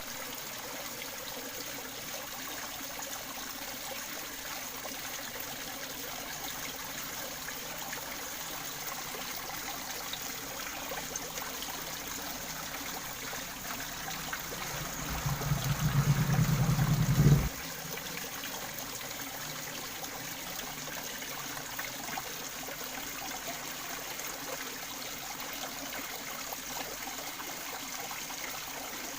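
Water trickling steadily into a fish pond. About halfway through, a louder low rumble builds for about three seconds and then cuts off suddenly.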